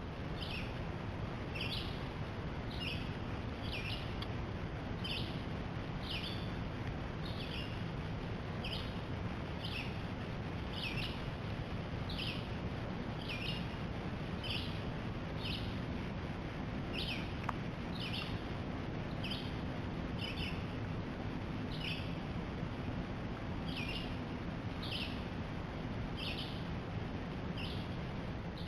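A bird calling over and over, one short high note about every three-quarters of a second, over a steady background hiss.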